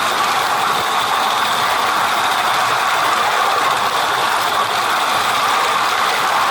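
A 16mm-scale garden railway train running along the track: a steady hiss with a mechanical rattle.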